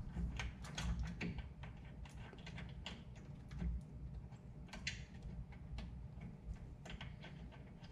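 Irregular small metallic clicks and ticks as nuts are threaded by hand onto the bolts of a GAST PCA-10 compressor's head, with a short scrape about five seconds in.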